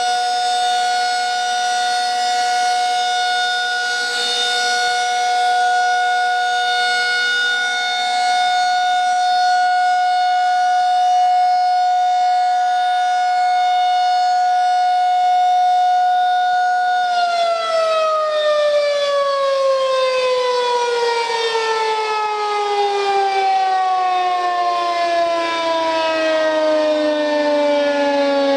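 Federal Signal 2001-SRN 12-port electromechanical siren sounding its steady alert tone, swelling and fading slightly as the horn rotates. About two-thirds of the way through it cuts power and winds down, the pitch falling steadily to the end of the signal.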